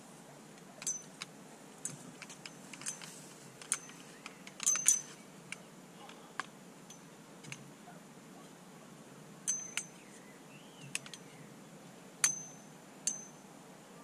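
Irregular sharp metallic clinks and ticks, some with a brief high ring, as the legs and fittings of a metal weigh tripod are set up and adjusted. The loudest clinks come about five seconds in and again near the end.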